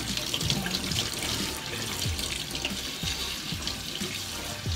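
Kitchen tap running in a steady stream onto hands and a split green onion stalk being rubbed clean under it, the water splashing into the sink.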